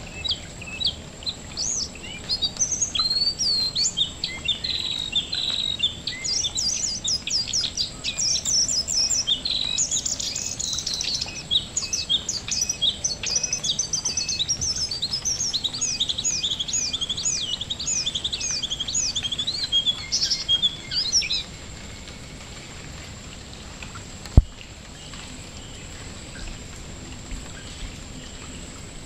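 A male jongkangan songbird singing fast, repeated high chirping and whistled phrases that stop about three-quarters of the way through, over the steady patter of rain dripping onto mangrove water. One sharp click near the end.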